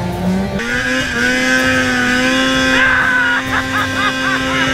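Polaris RMK 800 two-stroke snowmobile engine held at high revs in a steady, unchanging note during the jump, coming in about half a second in.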